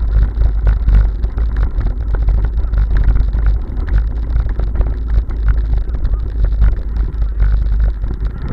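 Bicycle jolting fast over a cobblestone road, a steady low rumble with dense rapid rattling, heard through a camera mounted on the bike, with wind on the microphone.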